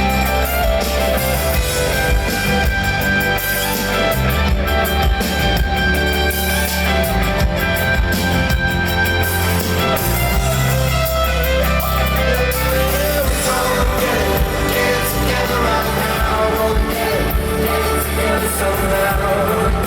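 Live rock band playing a loud instrumental passage, with guitar over sustained bass and drums.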